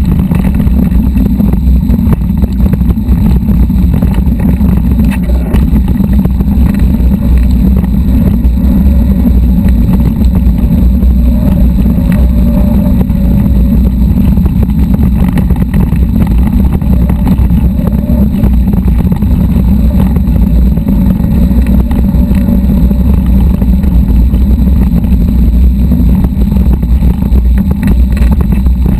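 Steady, heavy wind rumble on a bike-mounted camera's microphone while riding a mountain bike over a rocky dirt trail, with constant small rattles and knocks from the bike on the stones.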